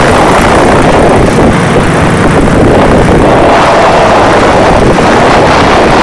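Loud, steady rush of wind and engine noise aboard an open ultralight aircraft in flight, with the wind buffeting the microphone.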